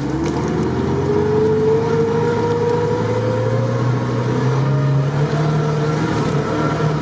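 Lada Niva's engine pulling steadily under load as the car drives through a deep, water-filled muddy rut. A whine rises in pitch over the first few seconds, then holds steady.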